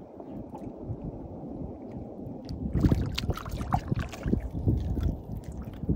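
Water lapping against a small boat's hull. About three seconds in, a run of irregular sharp splashes begins as a hooked fish is hauled to the surface beside the boat on a handline.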